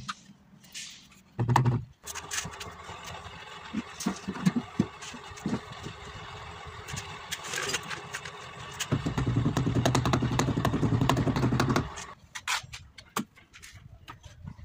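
An engine running steadily, louder for a few seconds about nine seconds in, with a few sharp knocks about four to five seconds in.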